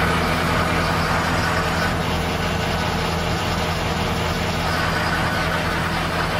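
John Deere 6130M tractor engine running steadily at raised throttle, driving the rear snowblower through the PTO with the blower spinning empty.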